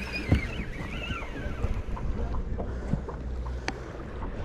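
Sportfishing boat's engine running with a steady low hum, with wind on the microphone. A few sharp knocks are heard, the loudest about a third of a second in, and a brief wavering high-pitched sound comes in the first second.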